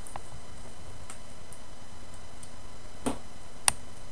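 Steady microphone hiss with four short, sharp clicks, the loudest near the end.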